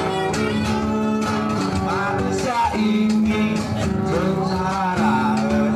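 Live band music led by acoustic guitar, with long held notes and a wavering melody line over them.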